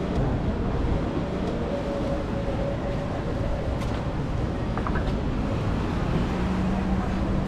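City street ambience: a steady rumble of traffic, with a low steady hum coming in near the end.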